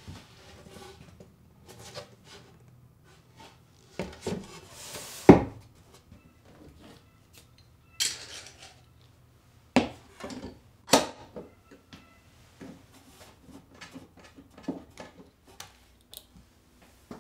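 Steel F-clamps and an MDF board being handled on a wooden workbench: metal clamp parts clicking and clanking, the board scraping as it slides across the bench, and several sharp knocks as board and clamps are set down and tightened, the loudest about five seconds in.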